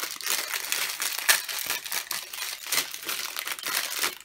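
Clear plastic packaging bag crinkling as it is handled, a continuous rustle with many sharp crackles, the loudest about a second in.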